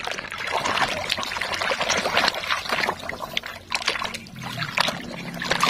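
Water splashing and sloshing irregularly as a hand swishes a mud-covered toy truck cab back and forth under shallow water, washing the mud off.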